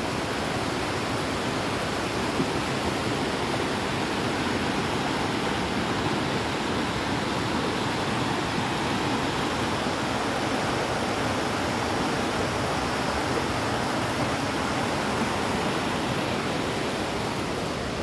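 River rapids rushing over rocks: a steady, even sound of white water.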